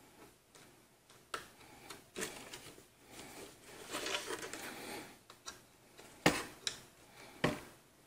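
Hands handling a motherboard, tightening plastic nuts on a CPU cooler's mounting hardware and turning the board over: scattered clicks, then a stretch of scraping and rustling. A few sharp knocks in the last two seconds are the loudest sounds.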